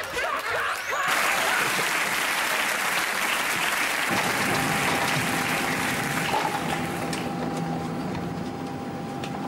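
Audience applause that starts about a second in and fades out by about seven seconds. From about four seconds, under the applause, the steady hum of an airliner cabin with a thin constant whine.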